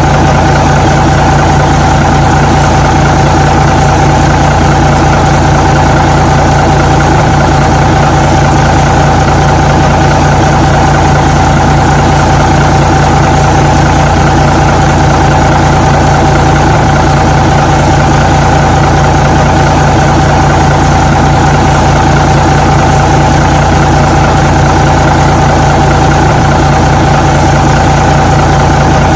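Truck engine idling steadily: an even, unchanging drone with a constant higher whine over it.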